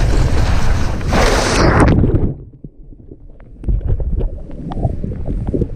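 Wind buffeting the camera microphone, loud and rough, cutting off suddenly about two seconds in. A quieter low rumble with scattered knocks and rustles follows.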